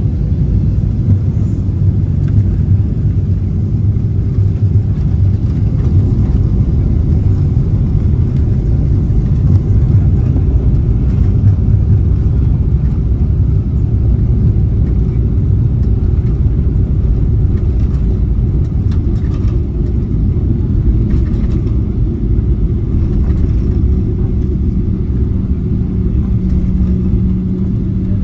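Jet airliner on the ground after landing, heard inside the cabin: a loud, steady rumble of engines and wheels rolling on the runway and taxiway. A steady hum comes in near the end.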